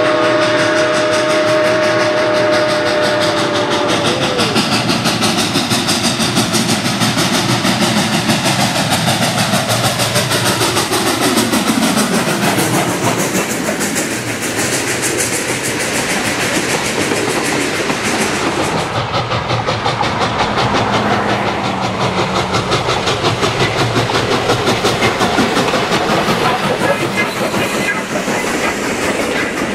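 Steam train sound: a whistle chord held for about four seconds, then the train running with a fast rhythmic clatter. Between about ten and thirteen seconds in, its pitch falls steadily as it passes.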